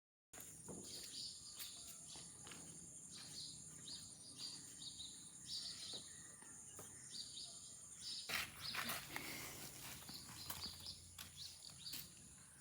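Quiet outdoor ambience with scattered short bird chirps over a steady high hiss.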